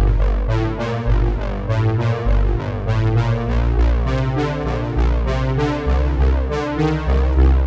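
Background music: synthesizer and keyboard with a steady beat and a moving bass line.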